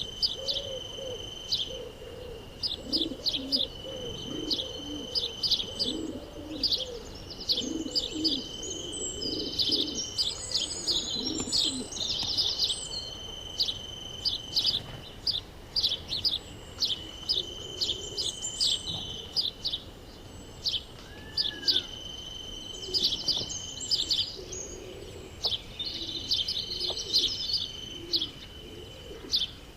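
Wild birds chirping and twittering in quick high calls, with doves cooing low, most often in the first dozen seconds, over a steady high-pitched whine.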